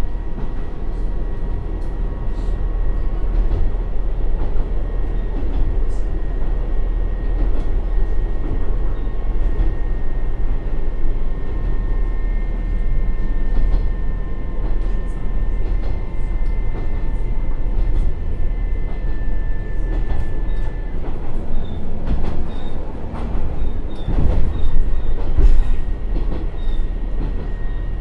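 Interior running sound of an Akechi 100-class diesel railcar descending a steep grade with its converter brake (hydraulic retarder) held on, engine and transmission working against the downhill run. A steady rumble of wheels and engine runs under a faint high whine, swelling louder for a couple of seconds near the end.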